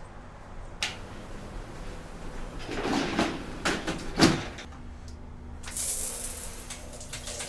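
Door and cupboard handling: a click about a second in, then knocks and rustling ending in a sharp thump. About three-quarters of the way through, a handheld shower starts spraying water with a steady hiss.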